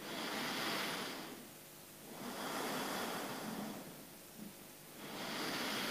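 A person breathing slowly and deeply while lying relaxed, giving three long, soft breath sounds with short pauses between them.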